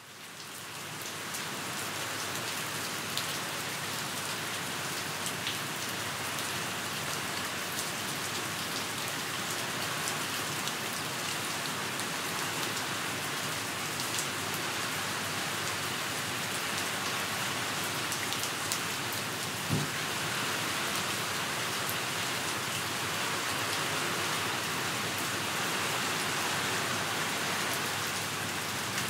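Steady rain falling on hard surfaces, fading in over the first second or so, with scattered drop taps and a single low thump about two-thirds of the way through.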